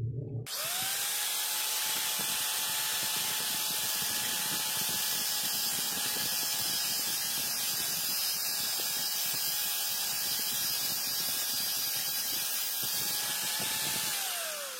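Electric sander used as a cutter spins up about half a second in and runs steadily with a high whine and dense hiss as it cuts the steel kitchen-knife blade. Near the end it winds down with a falling pitch.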